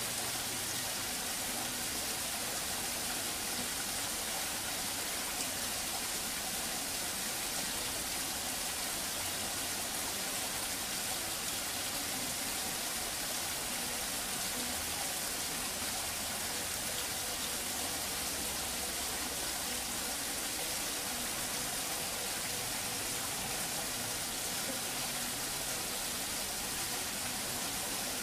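Steady hiss of running water, even and unbroken.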